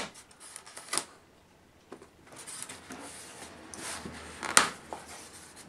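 A cardboard sheet being lifted and peeled back off a polystyrene packing tray: light rustling and scraping of card on polystyrene, with a few clicks and one sharp tap about four and a half seconds in.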